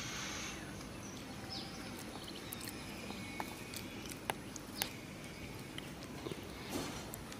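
Quiet outdoor ambience. A high hiss fades out about half a second in, and a few scattered sharp clicks and ticks follow, the loudest two near the middle.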